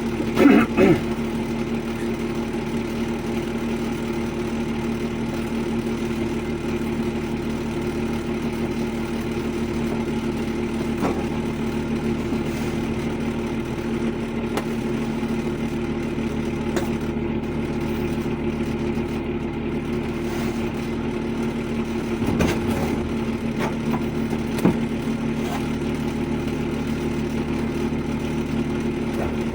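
Steady hum of a running motor or engine, with a few brief knocks about half a second in, and again about 22 and 25 seconds in.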